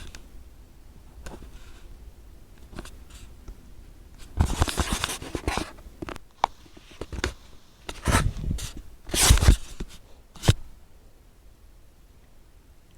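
Close rustling and scraping handling sounds with a few sharp clicks, coming in irregular bursts, loudest around four to five and a half seconds in and again around eight to nine and a half seconds in.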